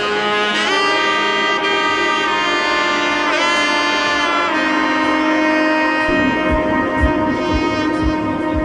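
Background music: sustained brass-like melody notes, joined about six seconds in by a steady low beat.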